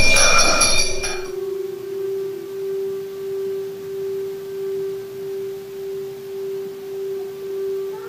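A bright, busy stretch of music breaks off about a second in. A Mannborg reed organ (harmonium) then holds one steady note that swells and fades about once a second.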